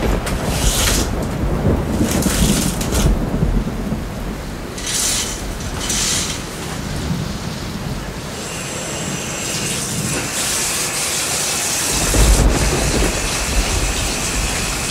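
Heavy rain with low rumbles of thunder, strongest about a second in and again about twelve seconds in; the hiss of the rain grows brighter past the middle.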